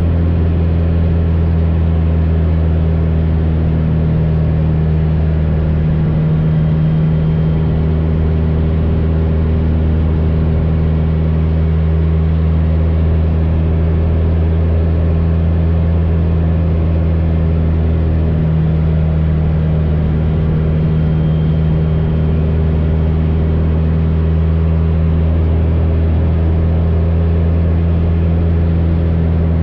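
AcroSport 2 aerobatic biplane's piston engine and propeller running steadily in flight, with a slight shift in pitch about six seconds in and again about eighteen seconds in.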